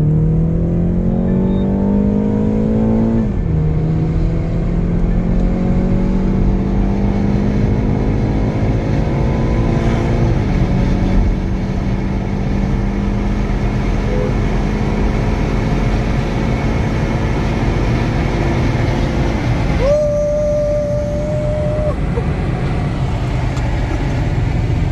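BMW car engine accelerating hard under full throttle from about 40 km/h, heard from inside the cabin: revs rise, drop at upshifts about 3 s and 10 s in, then hold steady at speed. A steady single tone sounds for about two seconds near the end.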